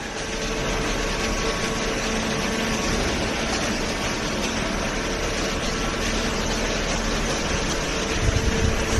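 Hydraulic cardboard baler's pump unit running with a steady hum and a faint whine holding one pitch, and a few low rumbles near the end.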